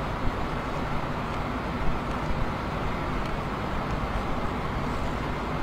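Steady low rumbling noise of the erupting volcano, even throughout with no separate blasts.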